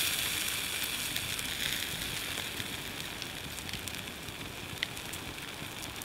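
Wood campfire crackling and hissing steadily, with scattered sharp pops, one louder about five seconds in.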